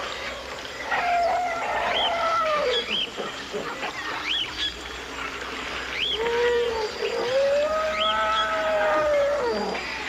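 Jungle nature-sound recording: two long, drawn-out animal calls that rise and fall in pitch, one about a second in and a longer one from about six seconds in, over repeated short rising-and-falling bird chirps.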